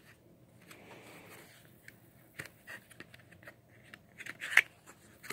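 Faint scraping and light clicks of fingers handling a small cardboard trading-card box at its end flap, with a sharper click about four and a half seconds in.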